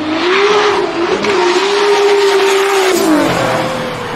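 Modified race car's engine revving up and held at high revs on the track, then the revs drop about three seconds in.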